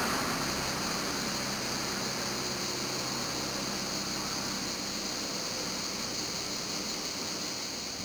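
Steady, even hiss with no distinct sounds in it, slowly getting a little quieter.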